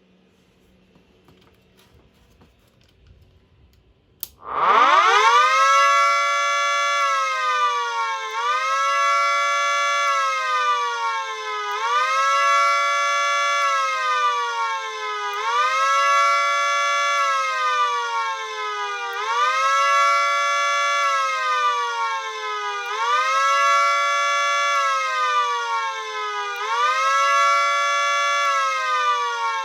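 Miniature Federal Signal 2T22A siren, run without its horns, starting about four seconds in and spinning up to full pitch within a second or two. It then wails up and down in a repeating cycle of about four seconds, dipping only partway before climbing back.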